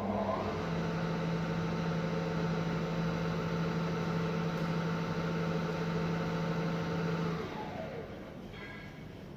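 Bimak 40 TF/C pillar drill running with no load: a whine that rises in pitch as it speeds up at the start, holds steady for about seven seconds, then falls as the spindle winds down.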